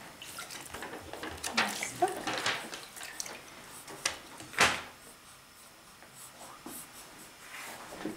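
Bath water splashing in a sink as a hand scoops and pours it over a newborn, in short splashes with the loudest about four and a half seconds in. A soft voice is heard briefly about two seconds in.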